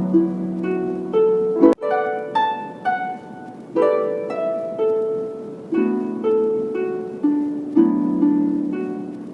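Background music: a melody of plucked notes that each ring and fade. There is a brief click and dropout about two seconds in.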